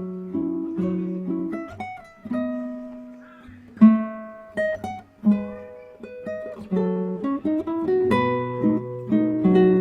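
Background music on acoustic guitar: plucked notes and chords that ring and die away.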